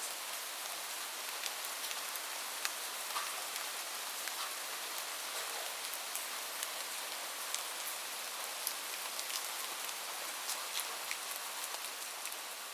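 Light rain falling: a steady hiss with many separate drops ticking at irregular intervals.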